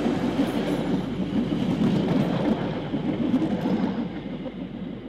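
Freight train rolling along the track: a dense low rumble and rattle of wheels and wagons on the rails, fading off about four seconds in.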